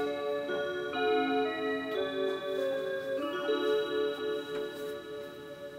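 Seiko Melodies in Motion wall clock playing one of its electronic melodies in sustained chords, while the motor and gears that turn its moving dial tick and run underneath the music.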